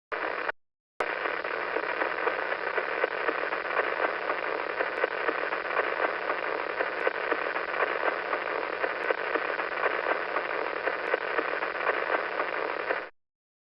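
Pulsar radio signal converted to sound: a steady hiss of radio static with faint, rapid ticks running through it, each tick a pulse from one turn of the spinning pulsar. It drops out for half a second just after the start, then runs on and cuts off suddenly near the end.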